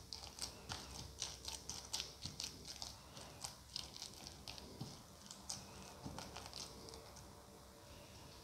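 A bare hand squishing and mashing boiled potato and cooked minced chicken in a bowl: faint, quick, irregular wet squelches and clicks that thin out near the end.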